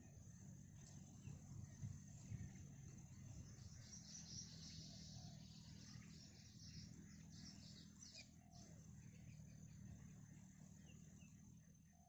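Faint outdoor natural ambience: a steady low rumble and a thin steady high tone, with a few faint, short bird chirps scattered through.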